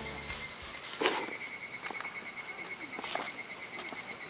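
Insects chirring steadily outdoors, a pulsing high trill with a hiss above it, with a sharp click about a second in and a few lighter ticks. Background music ends in the first moments.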